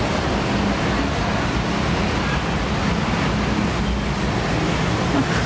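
Steady rushing background noise at an even level, with nothing standing out from it.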